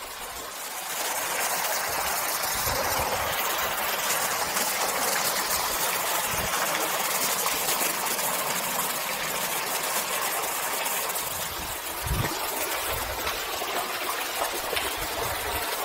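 Waterfall rushing: a steady hiss of falling water that swells about a second in and then holds. A few short low thumps on the microphone come later.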